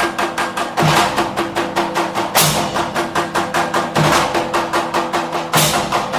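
Instrumental opening of a Hindi song: a fast, even percussion pattern of about seven quick strokes a second, with a deep beat about every one and a half seconds under a held tone.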